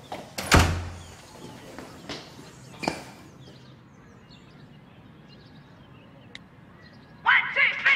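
A front door shutting with a loud thud about half a second in, followed by two softer knocks. Music starts near the end.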